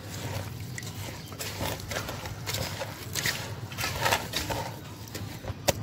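A hand kneading and squeezing wet chicken feed mash in a metal bowl: irregular soft squelches and slaps, with a sharper one near the end.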